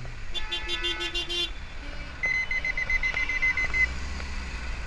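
A vehicle horn sounds in a quick stutter for about a second, then a high-pitched electronic beeping pulses rapidly for about a second and a half, over the low running of an engine.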